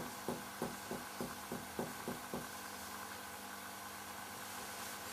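Soft finger-on-finger percussion taps on a patient's chest: about nine quick, even taps at roughly three to four a second, stopping about two and a half seconds in. This is the percussion used to map the left border of cardiac dullness in the fourth intercostal space.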